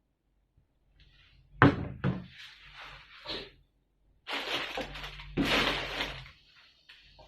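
Household knocks and handling noise: a sharp knock about one and a half seconds in, a second knock just after, scattered clatter, then about two seconds of rustling noise with another knock in it.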